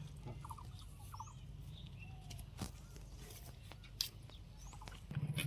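Faint bird chirps, short high rising calls and little runs of quick repeated notes, over a steady low hum. Two sharp clicks come about two and a half and four seconds in.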